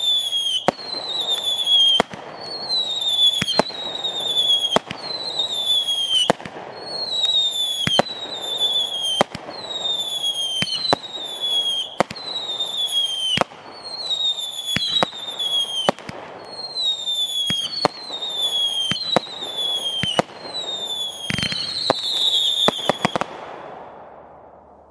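500-gram repeater firework cake firing shot after shot, about one a second. Each launch is a sharp report followed by a whistle falling in pitch, with a hissing haze between shots. One louder blast comes near the end, and the volley stops shortly after.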